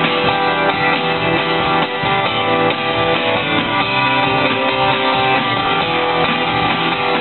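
Live band music: acoustic guitars strummed over an electric bass guitar, playing steadily.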